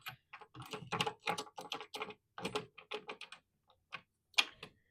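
A quick, irregular run of light clicks and knocks from objects being handled and shifted, with one sharper knock near the end.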